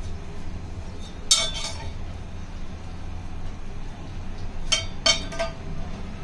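Metal kitchen utensils clinking against a cooking pot: one short run of clinks about a second in and two or three more near the end. Underneath is a steady low hum.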